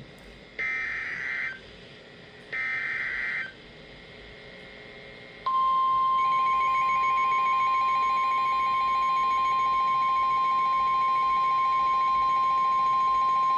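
Emergency Alert System header from NOAA Weather Radio: two one-second bursts of buzzy SAME data, a second apart, the end of the three-burst header. About five and a half seconds in, the steady 1050 Hz NWR warning alarm tone starts and holds at one pitch. It signals that a special marine warning follows.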